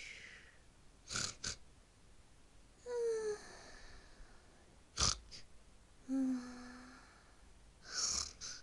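Cartoon snoring sound effect: a rough snorting inhale followed by a pitched, whistling exhale, repeated about three times. The first exhale falls in pitch; the second holds one pitch.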